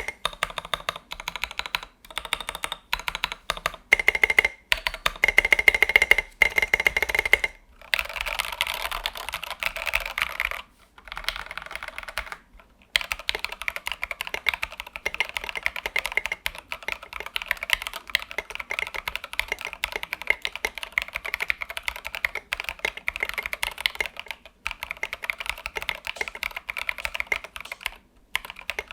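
Mechanical keyboard with Jwick Black switches and SA-profile keycaps being typed on: clacky. It starts with separate keystrokes, then about a third of the way in turns to fast, continuous typing with a few brief pauses.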